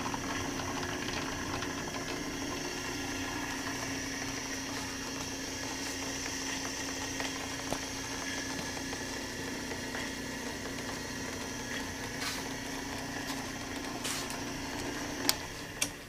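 Vintage Atlas 42B bench drill press, fitted with a prototype speed reducer, running with a steady motor hum. Near the end there are two sharp clicks and the hum stops.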